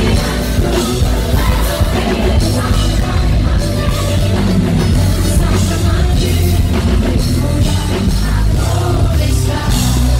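Live band playing loud, beat-driven pop through a concert PA, with a woman singing into a handheld microphone over it.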